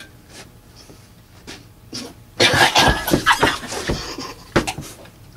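A person coughing and gagging hard on a mouthful of dry ground cinnamon. A fit of harsh, loud coughs sets in about two and a half seconds in, after a few quiet seconds.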